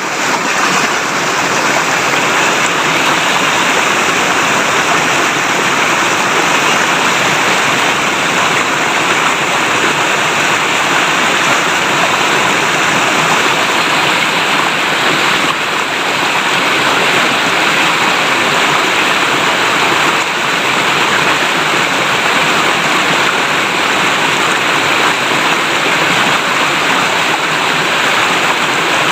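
River water flowing and babbling over rocks, a steady rushing splash.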